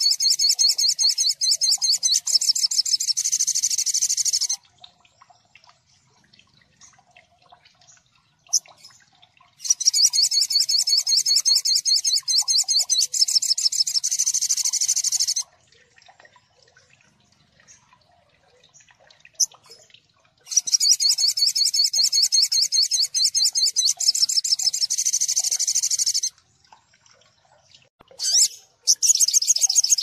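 Olive-backed sunbird (sogon) song: bouts of rapid, high-pitched repeated notes, each lasting five or six seconds, with pauses of about five seconds between them. A fourth bout starts near the end.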